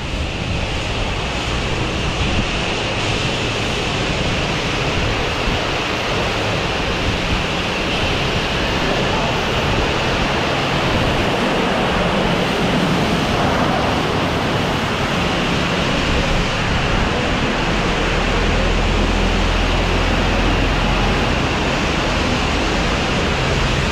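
Steady rushing hiss of high-pressure water spraying in a truck wash bay, with a low rumble from the wash equipment swelling briefly near the end.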